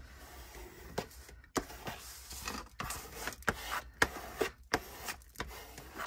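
Bone folder rubbed over paper, pressing down freshly glued paper: a run of irregular scraping strokes with small taps.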